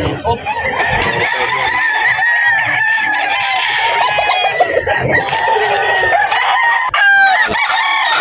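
Many gamecocks crowing and clucking over one another in a dense, continuous chorus, with a sharp click near the end.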